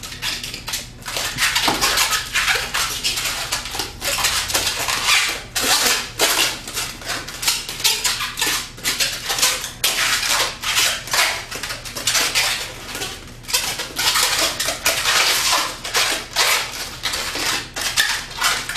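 A rubber balloon being twisted and handled into a balloon animal: a dense, irregular run of rubbery squeaks and rubbing.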